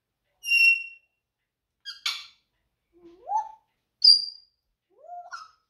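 African grey parrot calling: a run of about five short separate sounds, clear whistles mixed with a harsh squawk and two calls that rise in pitch.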